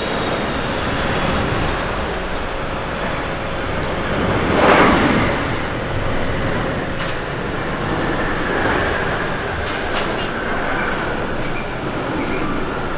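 Jet engine noise from a Boeing 777-300ER's GE90 turbofans in reverse thrust during landing rollout: a loud, steady roar with a louder swell about five seconds in.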